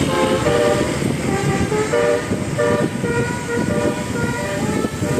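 Bus 'telolet' musical air horn (basuri type) playing a quick tune of short stepped notes, in two runs with a brief pause about a second in, over a steady low background rumble.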